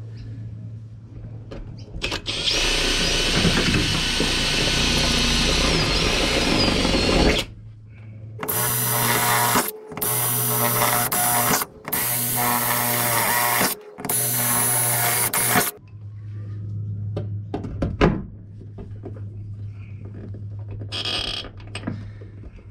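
Power drill boring rivet holes through a bonnet strut bracket and the sheet-metal bonnet: one long run of about five seconds, then four shorter bursts of a second or two each. A single sharp knock comes near the end.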